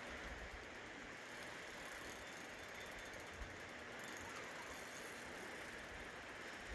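Fishing reel ticking steadily as a hooked steelhead is played on a bent rod, over a steady rush of river water and light wind buffeting on the microphone.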